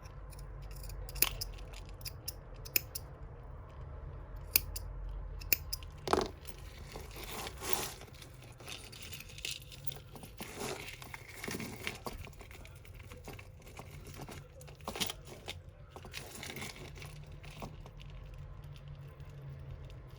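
Scissors snipping through tangled costume-jewellery strands, with several sharp snips in the first six seconds or so, amid the rustling of beads and chains being handled.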